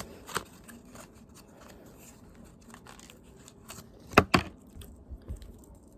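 Small plastic bag of fingerboard truck hardware being opened and handled: crinkling and tearing with scattered small clicks, and two sharp clicks about four seconds in.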